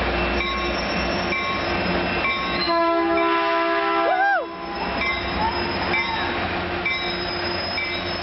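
Caltrain locomotive bell ringing in a steady repeated rhythm as the train moves through the station. About three seconds in, the horn sounds one blast lasting a little under two seconds, then cuts off abruptly.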